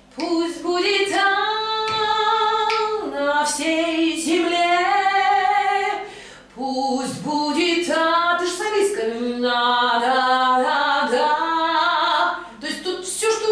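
Female voice singing without accompaniment: a phrase of held, sliding notes, a brief break about six seconds in, then a second phrase.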